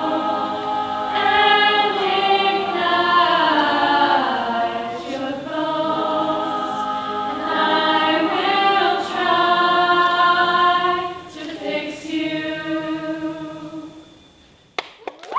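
Mixed-voice a cappella choir singing in harmony without accompaniment, holding long chords. The singing fades out near the end, followed by a short sharp click.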